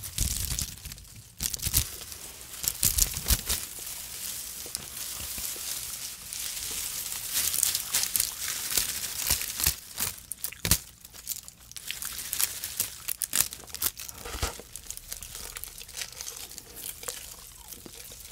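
Clear edible starch-film 'tape' (oblate) being crumpled and pulled apart close to the microphone: a dense run of irregular crinkles and crackles.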